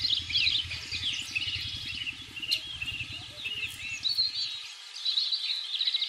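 Many small birds chirping and singing together in a dense chorus of short rapid calls and quick falling notes. A low rumble underneath cuts off suddenly about four and a half seconds in.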